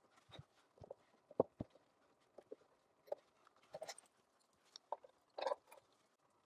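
Faint, scattered clicks and knocks of hand tools being handled and clipped into Quick Fist clamps on a MOLLE panel, the sharpest knock about a second and a half in, with a short rustle about five and a half seconds in.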